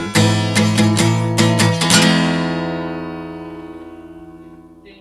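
Indie pop song ending: strummed guitar chords for about two seconds, then a final chord left to ring and fade away.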